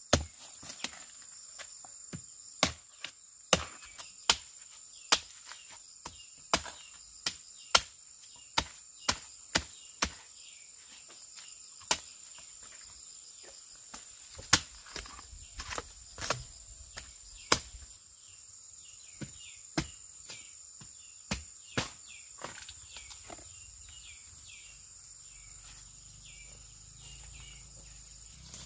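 Sharp chopping strikes of a blade cutting bamboo shoots out at the base. They come irregularly, about one or two a second, and thin out after about eighteen seconds. A steady high insect drone runs underneath, with a few bird chirps near the end.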